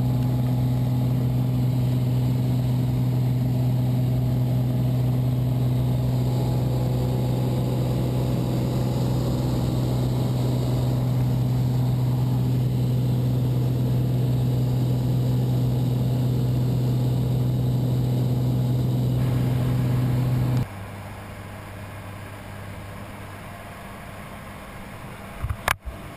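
Cessna 182's engine and propeller drone, loud and steady, heard inside the cabin in flight. About twenty seconds in it drops abruptly to a quieter, duller drone, and a sharp knock comes near the end.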